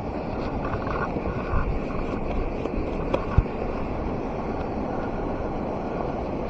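Steady rush of a fast-flowing river, with a sharp knock a little over three seconds in.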